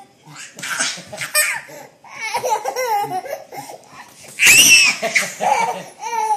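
A toddler laughing in repeated bursts, with a loud high-pitched squeal of laughter about four and a half seconds in.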